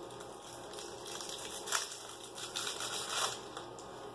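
Faint crinkling and rustling of plastic packaging being handled and opened, a little louder around two to three seconds in.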